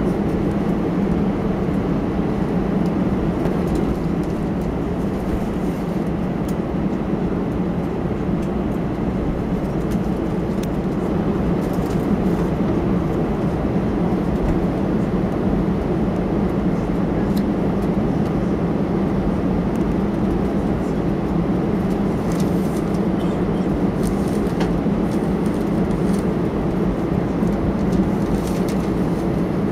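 Steady engine hum and rumble inside the cabin of an Airbus A320 taxiing after landing.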